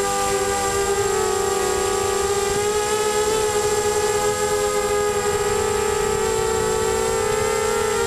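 Mini FPV quadcopter's Emax MT1806 brushless motors spinning 5x3 propellers in flight: a steady multi-pitched whine whose tones waver and drift slowly as the throttle changes, with wind rumble on the microphone.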